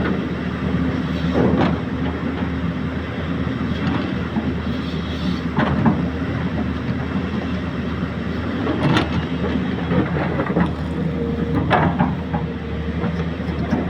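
Excavator's diesel engine running steadily, with a handful of short knocks from the machine at irregular intervals.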